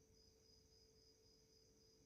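Near silence: room tone with a faint steady high-pitched tone and a faint low hum.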